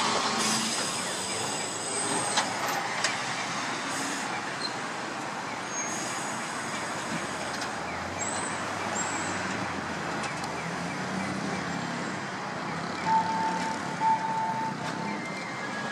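Tosa Electric Railway 600-series streetcar running past close by and on along the street track, a steady rolling and rumbling noise, loudest as it passes at first, with brief high-pitched squeals from the wheels and rails. Short beeps sound twice near the end.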